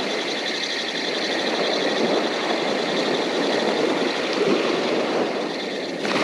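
Spinning reel cranked to retrieve a lure, its gears whirring in a quick even rhythm over the steady wash of small surf waves; the reeling stops near the end.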